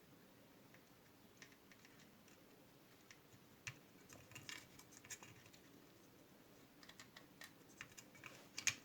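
Faint, scattered small clicks and taps from hands handling the tin toy car's parts and wiring, growing a little busier about halfway through.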